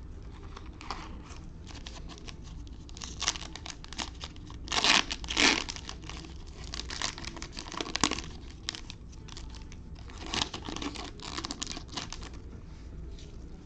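A 2021 Optic basketball trading-card pack being torn open and its wrapper crinkled, in a run of short papery rasps, the loudest two close together about five seconds in and another cluster near the end.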